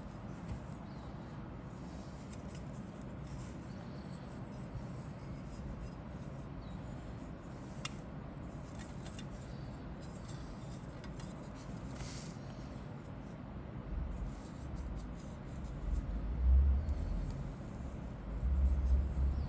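Faint clicks and rustling of plastic model-kit sprues being handled, over a steady low hum, with a sharp tick about eight seconds in. In the last few seconds there are several louder, dull low thumps.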